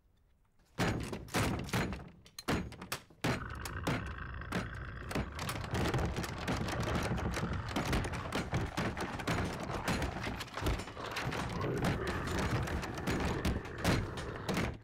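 Film action-scene sound effects: after a second of near silence, a sudden burst of loud crashes and thuds, then a dense, continuous din of banging and impacts.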